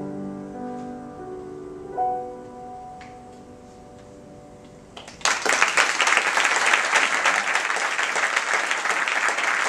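Upright piano playing the closing chords of a song, with a last note struck about two seconds in and then dying away. About five seconds in, audience applause breaks out loudly and keeps going.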